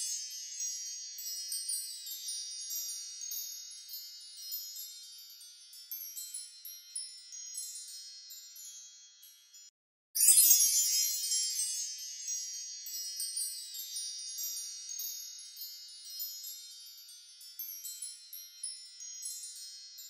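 Fairy-dust magic sparkle sound effect: a shimmer of many high, tinkling chime-like tones that fades away gradually. It stops just before halfway, then starts again at full strength and fades once more.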